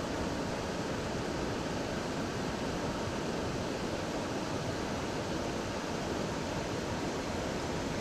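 Steady rushing of a waterfall and river current, an even wash of water noise with no change.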